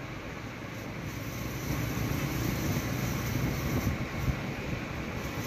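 Motorcycle engine running while riding, with wind rushing over the microphone; it gets louder about two seconds in.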